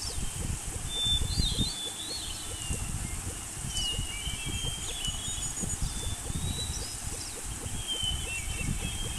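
Birds chirping with short whistles and trills over a steady low rumbling background noise.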